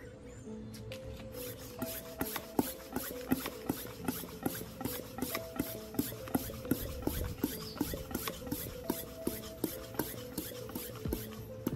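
Old restored upright bicycle floor pump being worked to inflate a tire, starting about two seconds in: a steady run of strokes, roughly one and a half a second, each with sharp clicks and a rush of air. Faint background music underneath.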